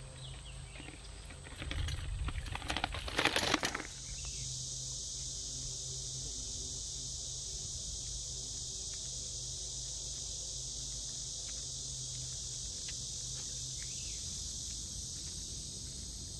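Rustling and clattering handling noise for the first four seconds, then a steady high-pitched insect chorus with a faint low hum beneath it.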